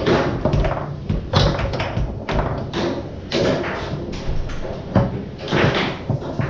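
Foosball being played on a Tornado table: the ball cracking against the players and table walls and the rods knocking, in quick irregular hits.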